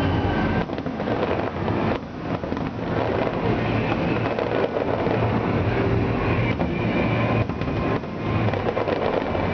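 Aerial fireworks shells bursting in quick succession, a continuous low rumble of overlapping bangs and crackle.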